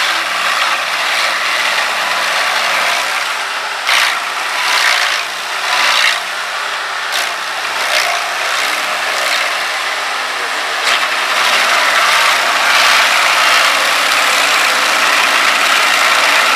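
Stump grinder running and grinding into a tree stump: a dense, continuous grinding noise with several sudden louder surges between about four and eight seconds in, growing louder toward the end.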